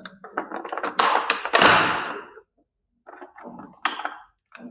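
Packaging holding a model bike to its base being cut and handled. There are sharp clicks and knocks about a second in, a longer rustling scrape that fades, then softer crackling near the end.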